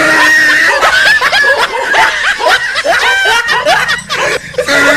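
Snickering and chuckling laughter, in short high-pitched bouts one after another.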